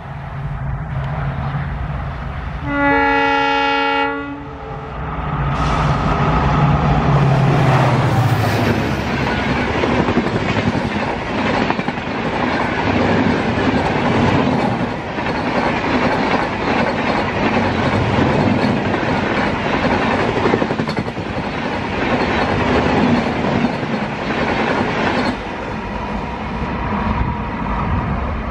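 A diesel-hauled express train blows its horn once for about a second and a half, then passes close at speed. The locomotive goes by first, followed by a long rush of coaches with wheels clattering over the rail joints. The noise falls away near the end as the last coaches pass.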